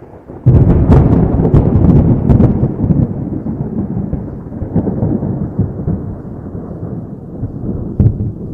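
A close thunderclap breaks about half a second in, with sharp cracks over the first couple of seconds, then a long rolling rumble that slowly fades. Another crack sounds near the end.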